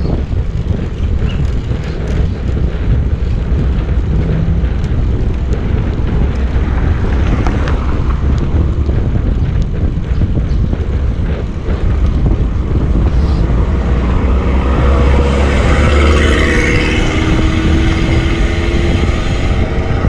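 Wind buffeting the action camera's microphone on a moving road bike: a loud, steady low rumble of wind and road noise. Near the end a motor vehicle's engine drone rises and falls as it passes.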